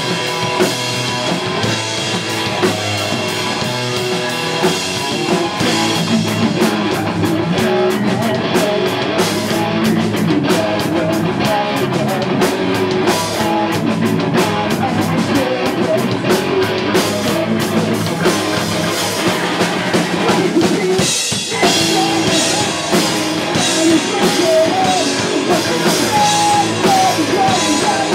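Live pop-punk band playing loudly: a drum kit with cymbals over distorted guitars and bass. The music drops out briefly about three-quarters of the way through, then comes back in full.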